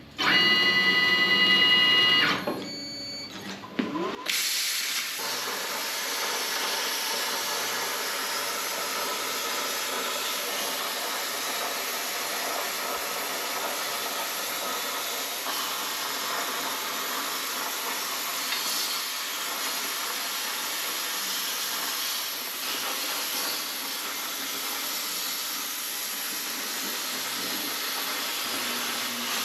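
A loud pitched tone for about two seconds at the start, then, from about four seconds in, the steady hiss of a CNC plasma cutter's arc cutting through steel plate.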